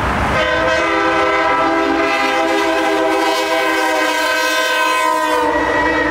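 Semi-truck air horn blaring: a held chord of several steady tones that starts about half a second in and shifts in pitch near the end.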